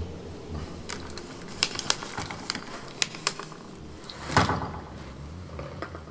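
Irregular sharp clicks and taps, then one short, louder, rougher noise a little past four seconds in.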